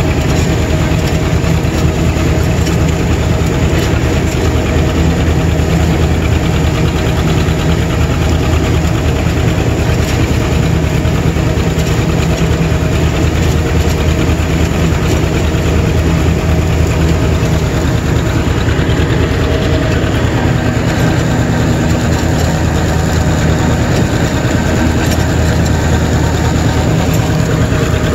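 John Deere 630's two-cylinder engine running steadily under load while driving a LandPride finish mower, heard from the seat right beside the exhaust stack.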